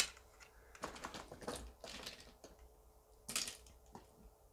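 Buttons of a fidget toy pressed over and over by hand: a scatter of quick, uneven clicks, like typing.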